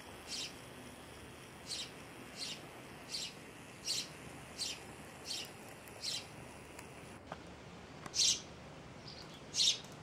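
A sparrow chirping: short, sharp single cheeps repeated evenly a little faster than one a second, then after a pause a few louder cheeps near the end.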